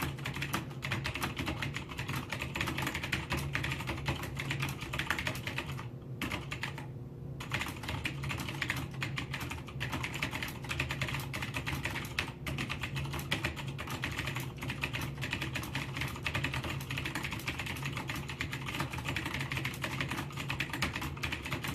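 Continuous typing on a Cherry G80-3000 keyboard with PCB-mounted Cherry MX Blue switches: a dense, fast stream of key clicks, with a brief pause about six seconds in.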